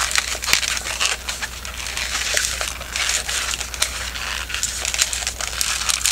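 Two inflated 160 latex modelling balloons squeaking and rubbing against each other as they are twisted together into bubbles and pinch twists, a dense run of squeaks and crackles.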